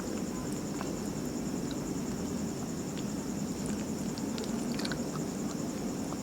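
Small wet clicks and smacks of someone chewing soft martabak manis (sweet Indonesian pancake), coming more often after about three and a half seconds. Behind them runs a steady high pulsing insect chirping and a steady low background noise.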